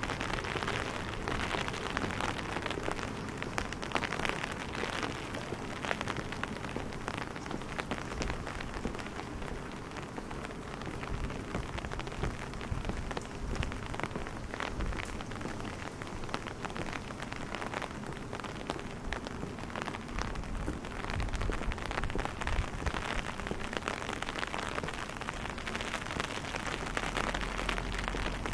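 Steady rain falling on wet cobblestone streets, a dense hiss speckled with the ticks of single drops. A low rumble comes in near the end.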